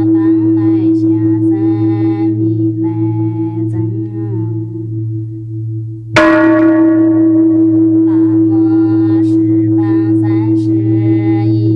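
A bell struck once about halfway through, ringing out and slowly fading over a steady low drone with wavering tones above it.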